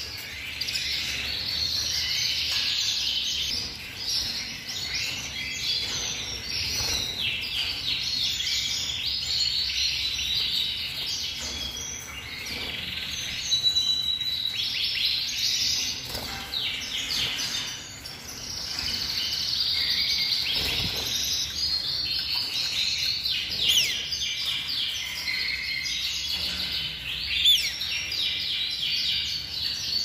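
Several domestic canaries singing at once: a dense, continuous chorus of fast trills and chirps.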